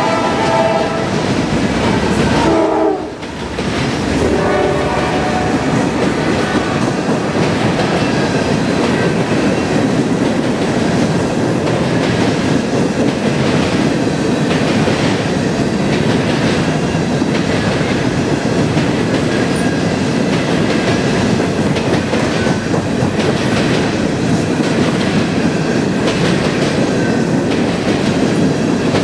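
A freight train of open-top hopper cars rolling past close by: a steady rumble of wheels on rail with a regular clatter of wheels over rail joints. A train horn sounds in the first few seconds, its pitch falling away about three seconds in.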